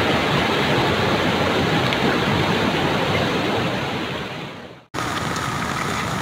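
Flooded river rushing through rocky rapids, a steady loud wash of churning whitewater that fades out about four seconds in. After a sudden cut, another steady rush of floodwater starts.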